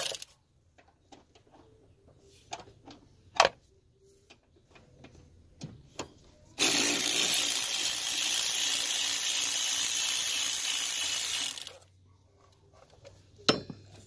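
A few sharp tool clicks and knocks, then about six and a half seconds in a power tool runs steadily for about five seconds and stops, loosening a bolt that holds the lower air filter box.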